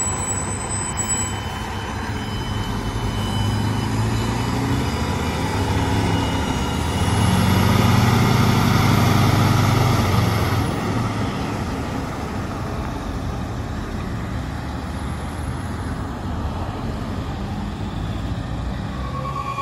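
Aerial ladder fire truck's diesel engine pulling away and driving past, growing louder to a peak about eight seconds in. It then fades into steady road traffic noise.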